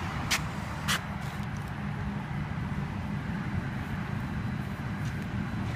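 DC fast charger humming steadily while it charges a car, with two sharp clicks about half a second apart near the start.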